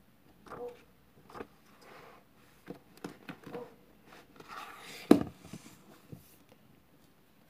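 Pages of a hardcover book being turned, with soft paper rustles and small clicks, then a riffle of pages and one loud thump about five seconds in as the heavy book is closed and laid down on a wooden table.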